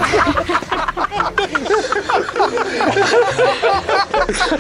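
Canned laughter: several people laughing and chuckling together in quick, overlapping bursts, added as a gag after a punchline.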